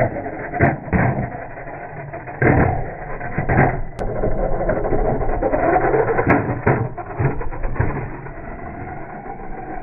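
Small RC toy car with an upgraded high-speed 130 brushed motor driving over rough ground. The motor whines up and down, and the plastic car knocks and clatters as it bounces around with loose parts inside.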